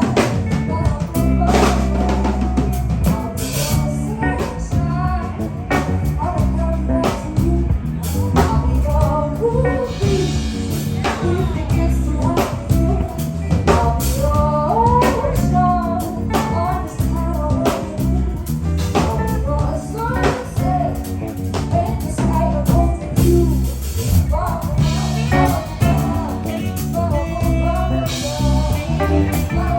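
Live band playing a song: drum kit keeping a steady beat under bass and guitar, with a singer's voice carrying the melody.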